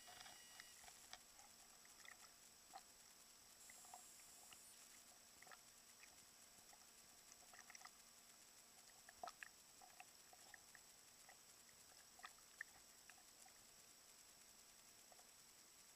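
Near silence: a faint steady hiss with a thin high whine, broken by scattered faint ticks and clicks at irregular intervals, the strongest about nine seconds in.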